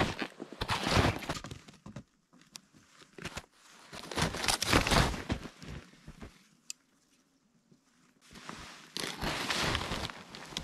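Snow crunching and rustling under snowshoes and hands, in three bouts of a second or two each.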